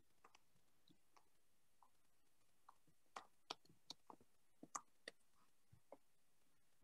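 Near silence: room tone with a dozen or so faint, irregular clicks, bunched about three to five seconds in.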